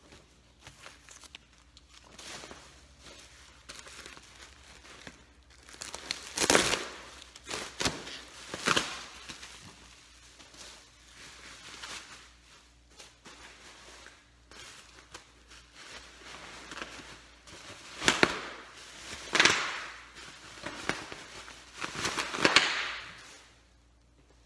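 Packing material being rummaged and crumpled by hand, in scattered bursts of rustling and crinkling, loudest in two clusters, a few seconds in and again near the end.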